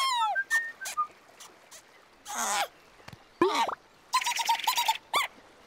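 Cartoon bird's high-pitched squeaky chirps: a falling chirp at the start, a couple of short blips, a rising-and-falling squeak about three and a half seconds in, then a rapid warbling trill and a last short squeak. A brief swish comes about two and a half seconds in.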